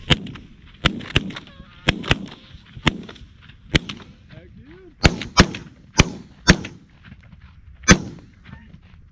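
A volley of shotgun fire from several goose hunters shooting together: about a dozen sharp shots at irregular spacing over eight seconds, some in quick pairs, the loudest near the middle and the last one a second or so before the end.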